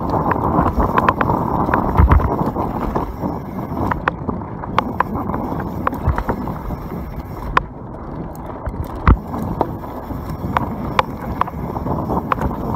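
YT Capra enduro mountain bike descending a dirt trail at speed: tyres rolling over dirt and stones under wind rushing over the camera microphone, with frequent rattling clicks from the bike and a couple of heavier thumps, about two seconds in and near nine seconds.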